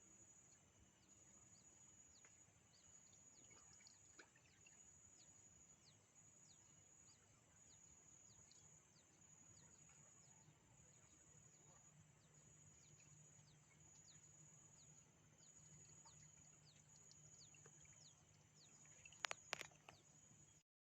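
Near silence: faint outdoor ambience with a steady high insect drone and many faint, short, falling bird or insect chirps. A couple of sharp clicks come near the end.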